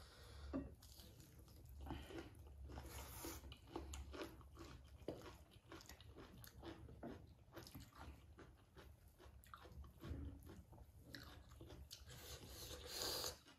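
Faint, close-up eating sounds: crisp bites into raw cucumber and the chewing of mouthfuls of food, a steady run of small crunches and clicks, growing louder near the end.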